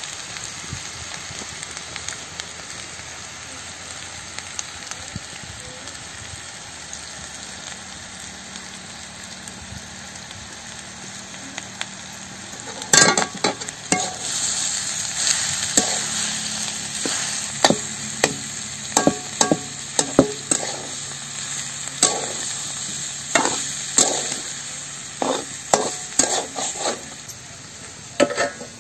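Diced potatoes sizzling as they fry in an iron kadai. About halfway through the sizzle gets suddenly louder, and a steel spatula stirring the potatoes scrapes and knocks against the pan again and again.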